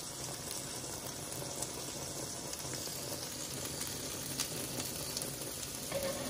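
Corn tortillas and meat frying in fat on a flat-top griddle, a steady sizzle, with a few faint clicks of metal tongs.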